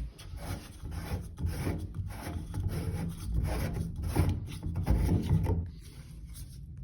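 A run of short rasping scrapes, two or three a second, that stops near the end, as the loosened Delta shower valve bonnet nut is unscrewed off its threads, still gripped by the pipe and Fernco coupling. The nut had been stuck by hard-water buildup.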